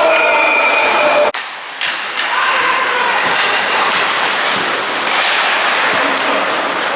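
Ice hockey game sounds in a rink hall: thuds and knocks from play, with voices calling out. The sound drops out abruptly a little over a second in, then returns.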